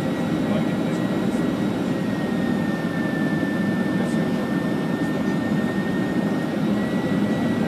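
Steady jet airliner cabin noise on final approach: the engines and rushing air make a constant, even sound, with a thin steady whine above it that dips a little in pitch about three seconds in and comes back up.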